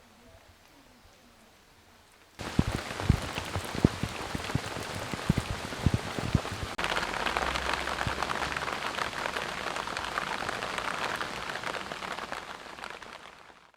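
Rain pattering on a surface, with close heavy drops landing as distinct taps. It starts suddenly a couple of seconds in, turns to a denser, even patter about seven seconds in, and fades out at the end.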